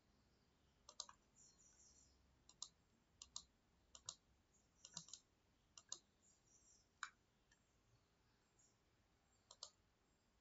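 Faint clicks of a computer mouse, a dozen or so at irregular intervals, some in quick pairs like double-clicks.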